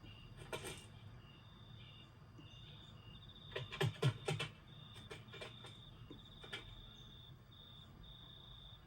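Steady pulsed cricket chirping, with several sharp clicks or taps clustered about four seconds in and a few more scattered later.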